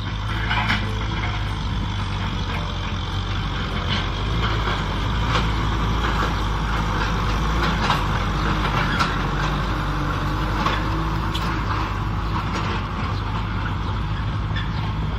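Kubota M6040 SU tractor's diesel engine running steadily, with scattered clicks and knocks over the engine noise.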